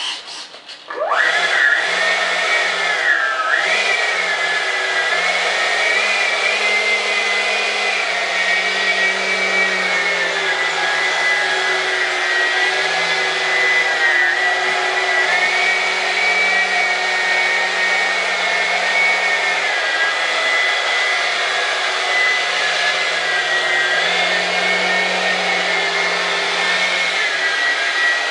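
Electric ducted fan of an RC model jet, a Dr. Mad Thrust 68mm 10-blade unit on a 6-cell battery, spooling up about a second in and then running with a steady high whine, its pitch dipping briefly a few times with the throttle.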